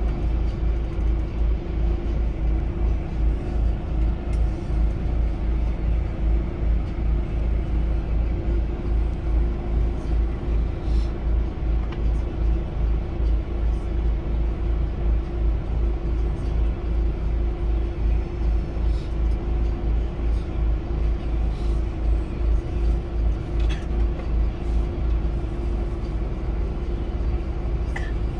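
Steady low rumble of a moving vehicle, with a constant hum over it and a fast, even pulsing in the deep rumble.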